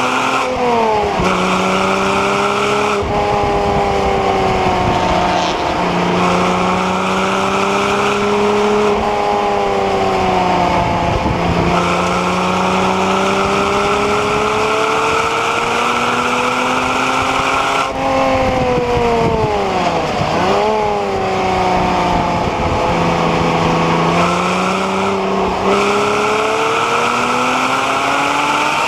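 Porsche Cayman 987's 2.9-litre flat-six engine, heard from inside the car, driven hard on track: revs climb and fall again and again through gear changes, with a sharp drop in revs about twenty seconds in.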